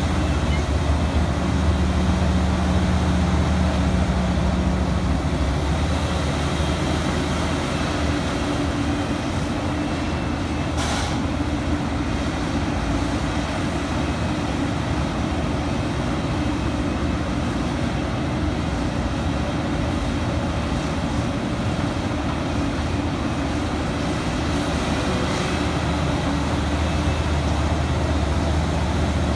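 Liebherr 974 hydraulic excavator's diesel engine running under load as it digs and loads coal, a steady engine hum that grows louder and fuller in the first few seconds and again near the end. A brief sharp noise about eleven seconds in.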